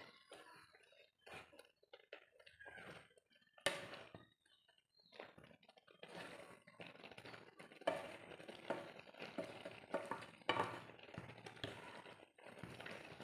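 Wooden spatula stirring grated carrots in milk in a karahi, scraping and knocking irregularly against the pan, with one sharper knock about four seconds in and busier strokes in the second half.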